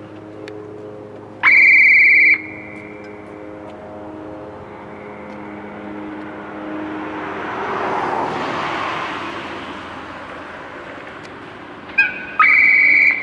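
High-pitched whistle of an approaching JNR EF65 electric locomotive. It sounds one blast about a second and a half in, then a short pip and a second blast near the end. In between, the rush of a train running past swells and fades.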